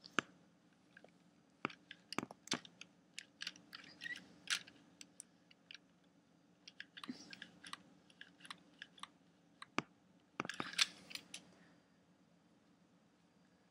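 Plastic Lego Technic pieces clicking and clattering as a brick-built toy gun is handled and parts are pressed and fiddled into place. The clicks come irregularly, in thicker clusters about two to five seconds in and again around ten to twelve seconds in, then stop.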